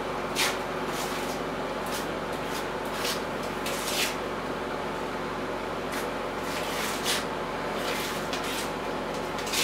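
Paintbrush strokes spreading RedGard liquid waterproofing membrane over a floor seam: short scratchy swishes, about one or two a second, with a pause midway.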